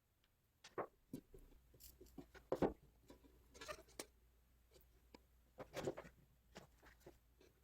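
Scattered light clicks, taps and rustles of small parts being handled and worked on by hand, with quiet gaps between; the sharpest knocks come about two and a half seconds in and near six seconds.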